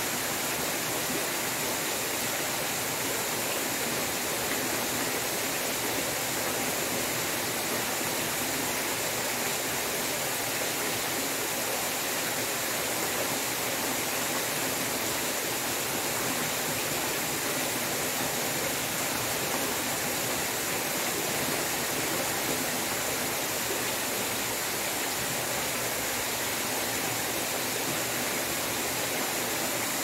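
Steady rush of water pouring from a stone-wall spillway into a swimming pool.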